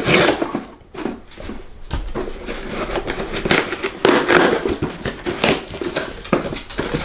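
Cardboard shipping box being handled and pulled open by hand, with continuous rustling, scraping and crackling of the cardboard and tape. A louder rustle comes right at the start.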